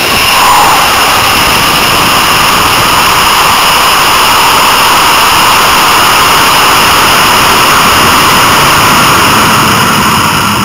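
Hybrid rocket motor burning through its climb, heard from on board the rocket: a loud, steady rushing noise that begins to die away near the end.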